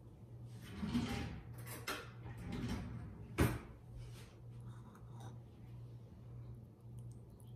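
Kitchen handling noises: two soft sliding sounds, then a sharp click about three and a half seconds in, and a few faint ticks after.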